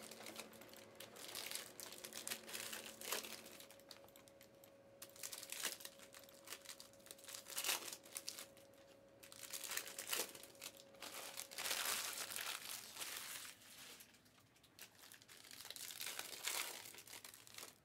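Foil trading-card pack wrappers crinkling and tearing in irregular bursts as Panini Prizm football packs are handled and opened.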